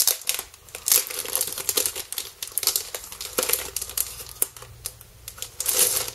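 A clear plastic bag crinkling as a boxed set of colour pencils is handled and pulled out of it: a run of sharp crackles, loudest about a second in and near the end.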